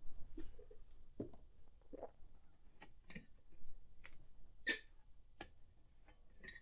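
Scattered light clicks and knocks from handling a circuit board in its holder as it is taken out. The sharpest clicks come in the second half.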